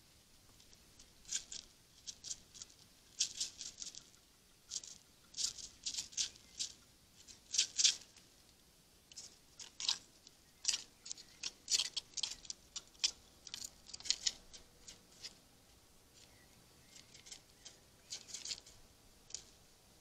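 Red squirrel clinging to a wooden bird feeder house, making irregular dry scratching clicks in quick clusters, with a short lull about two-thirds of the way through.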